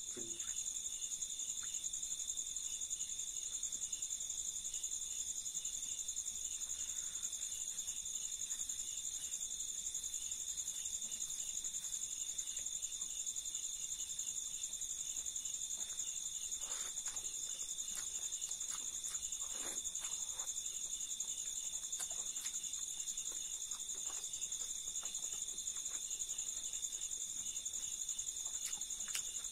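Steady, high-pitched chirring of crickets, unbroken throughout, with a few faint eating sounds of rice and fried silkworms being handled and chewed.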